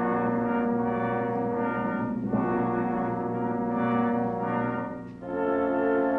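Pipe organ playing slow, held chords with a brassy tone, moving to a new chord about two seconds in and again about five seconds in.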